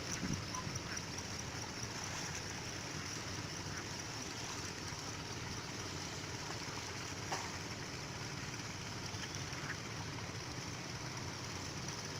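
Steady rush of flowing water, with a few faint clicks.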